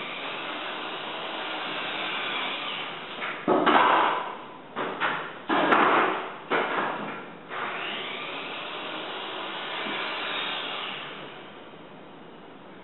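Loose hardwood flooring boards being racked out on the subfloor: long scraping slides of boards across the floor, with a run of sharp wooden clatters and knocks in the middle as boards are dropped and set in place.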